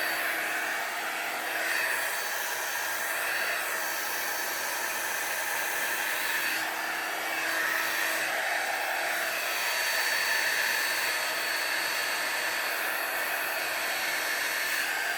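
Hair dryer with a roller brush attachment running steadily, blowing air through hair, its whoosh swelling and easing a little as it is moved; a faint low hum in it stops about ten seconds in.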